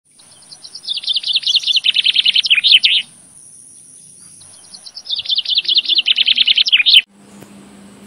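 A songbird singing two loud phrases of rapid repeated notes, each building in loudness. There is a pause of about two seconds between them.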